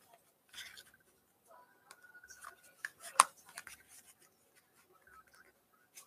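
A pack of football trading cards being opened and the cards handled: soft rustles and scrapes broken by sharp clicks, the loudest about three seconds in.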